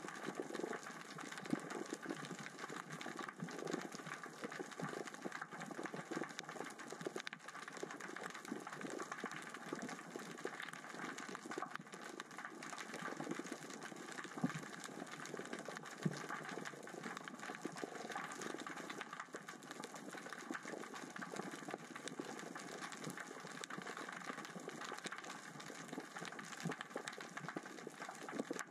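Underwater ambience: a constant dense crackling of small rocks rolling across the sea floor as the current and tide move them, with two sharper clicks about halfway through.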